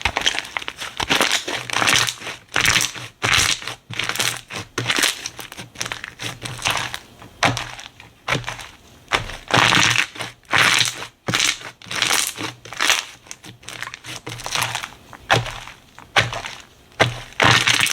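Slime being squeezed and pressed by hand, a run of uneven noisy pops and squishes, about one or two a second.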